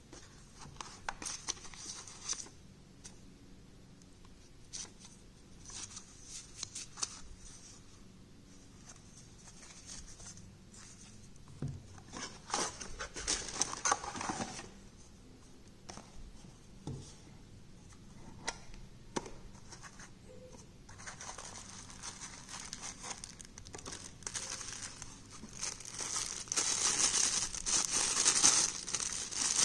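Watch packaging being handled: cardboard flaps and boxes rustling and scraping in irregular spells, with scattered clicks. Over the last few seconds a clear plastic bag crinkles, the loudest part, as a G-Shock watch is unwrapped from it.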